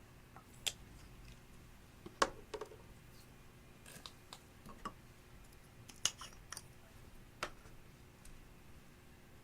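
Glossy slime being worked by hand, giving scattered sharp clicks and pops, about seven of them at uneven intervals, the loudest about two and six seconds in.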